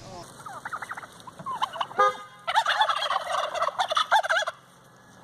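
A bird calling in rapid, quavering bursts in two bouts, the second longer and louder, with a sharp knock between them about two seconds in.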